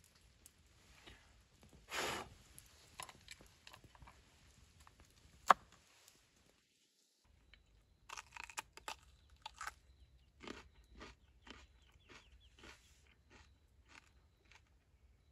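Crunching bites and chewing of a raw sweet pepper: a run of short crisp crunches through the second half. Before that, scattered knocks and rustles with one sharp click about five and a half seconds in, then a brief dropout.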